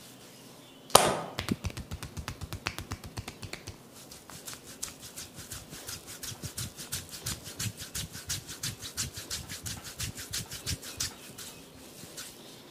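Percussive hand massage: a sharp slap about a second in, then fast rhythmic tapping and slapping of hands on the body, several strokes a second, ending shortly before the end.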